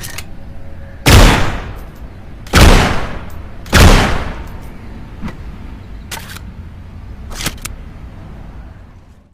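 Impala gravita bow gun sound effect: three loud shots about a second and a half apart, each trailing off in a fading echo. They are followed by a few quieter sharp clicks over a steady hiss.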